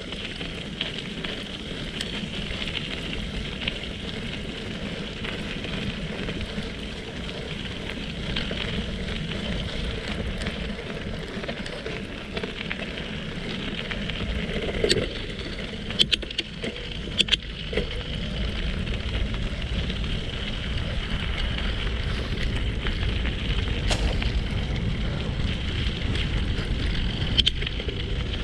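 Bicycle tyres rolling fast over a gravel forest road, a steady crunching hiss with a few sharp knocks and rattles of the bike over bumps about halfway through. Wind buffets the microphone, growing stronger in the second half.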